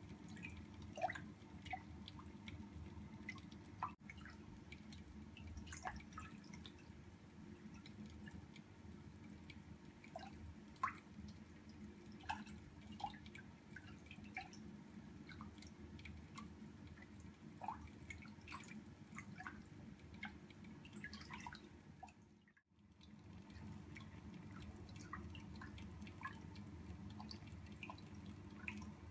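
Water in a small aquarium tank: scattered small drips and bubbling plinks as a fly is moved through it, over a steady low hum. The sound drops out briefly about 22 seconds in.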